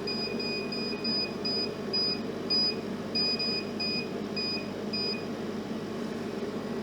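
Short, high electronic beeps from the CO2 laser cutter's electronics, about a dozen at uneven intervals, stopping near the end, over a steady machine hum.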